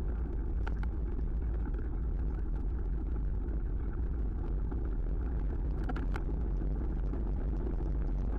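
Wind rushing over the microphone of a camera on a moving bicycle, with tyre rumble on asphalt: a steady low rumble. A few light clicks or rattles come through, about a second in and about six seconds in.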